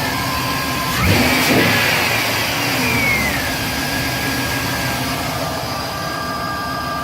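Truck's 6.0-litre V8 engine idling, blipped once about a second in and settling back to idle, now with its exhaust manifold leak sealed by a bolt-on manifold clamp.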